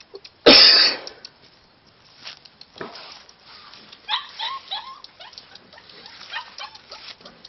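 Samoyed puppy giving a few short, high whimpering yips, a quick run of them about four seconds in and another near six seconds. A loud, brief rush of noise comes just after the start.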